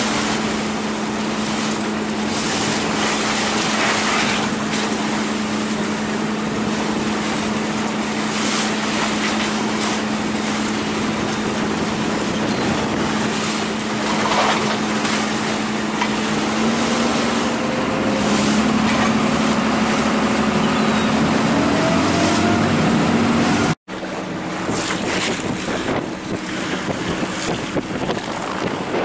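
Lobster boat engine droning steadily under heavy wind noise on the microphone and waves slapping the hull. Its pitch rises for several seconds as the throttle comes up, and the sound cuts out abruptly about 24 seconds in, then the wind and sea noise carry on.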